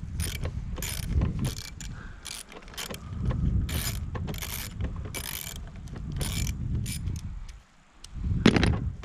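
Ratchet wrench clicking in short, irregular runs while a push mower is being unbolted, over low handling noise, with a heavier knock near the end.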